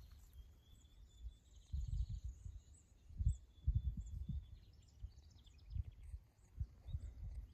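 Wind gusting and buffeting on the microphone in uneven bursts, with faint high bird chirps and short trills behind it.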